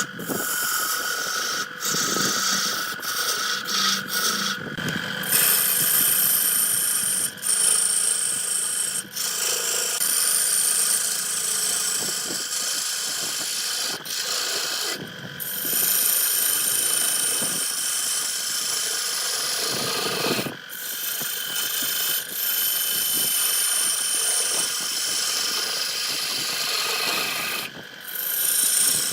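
Wood lathe running while a turning tool cuts the spinning wood: a steady scraping hiss of the cut over the machine's hum, broken off briefly four or five times.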